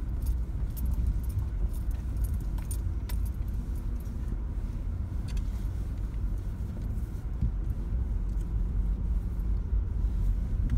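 Low rumble of a vehicle creeping along a rough dirt trail, heard from inside the cabin, with light metallic jingling and clicking rattles over the bumps.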